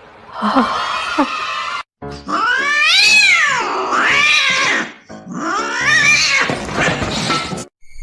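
A cat yowling in long, drawn-out meows that rise and then fall in pitch. The sound cuts off abruptly twice.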